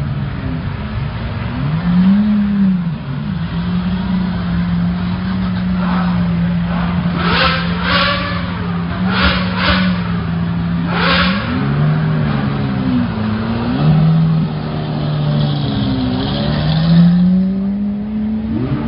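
Sports-car engines running with a steady drone that swings up and down in pitch, with several short, sharp revs in the middle.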